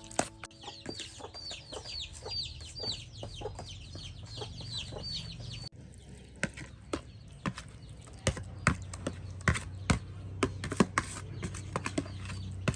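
A bird chirping over and over in short, high, falling calls, about two a second, for roughly the first five seconds, with scattered clicks and knocks throughout. After an abrupt break the chirping stops, and the knocks and clicks go on over a low hum.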